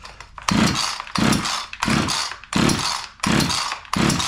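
Husqvarna 455 Rancher chainsaw being pull-started with the choke set: six quick rope pulls, each a short rasping whir as the recoil starter spins the engine over. The engine does not fire; it has no compression.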